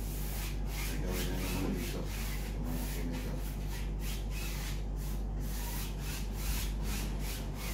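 A long hand tool rubbed back and forth across the face of a large painting board: a rhythmic rubbing or scraping, about two to three strokes a second, over a steady low hum.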